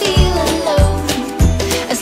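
Upbeat background music with a steady beat, about one bass thud every 0.6 seconds under a melody.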